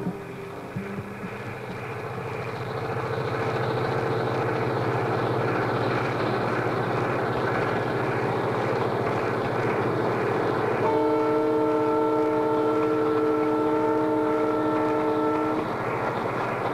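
A train running with a steady rumble that grows louder over the first few seconds. About eleven seconds in its horn sounds a held chord of several notes for about five seconds, then stops while the rumble goes on.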